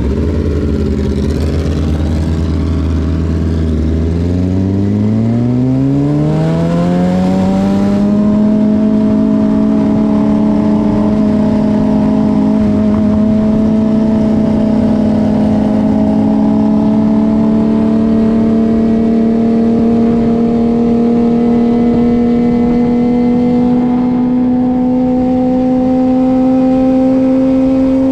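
2009 Suzuki GSX-R600 inline-four engine, heard onboard. It runs at low revs, then revs up steadily for about four seconds as the bike accelerates, then settles into a steady cruising note that climbs only slowly.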